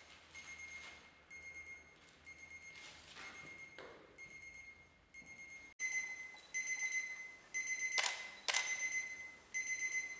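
Alarm clock beeping in repeated bursts of one high tone, about one burst a second, louder from a little past halfway. Two sharp clicks come about half a second apart near the end, and soft rustles come around three to four seconds in.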